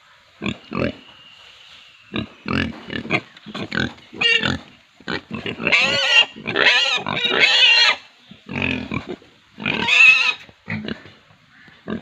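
Domestic pigs giving short grunts, then a run of long, high-pitched squeals in the middle, with the loudest squeal shortly before the end.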